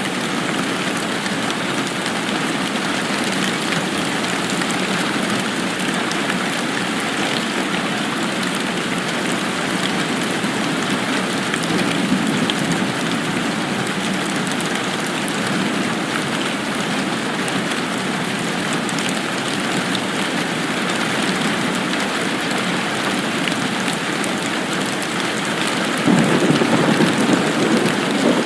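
Steady rain falling, an even hiss, with a low rumble swelling about twelve seconds in and a louder rumble near the end.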